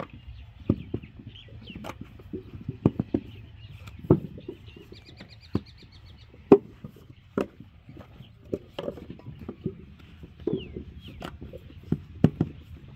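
Irregular dull thuds and knocks from manual clay brick making, about one a second, some louder than others, with a faint bird trill about five seconds in.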